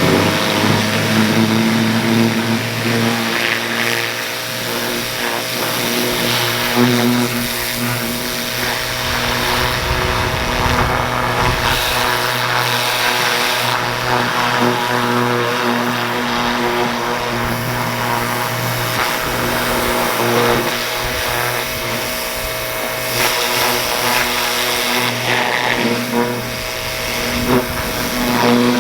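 Pressure washer running steadily, its water jet hissing as it blasts caked grass and gummy weed residue off a zero-turn mower deck.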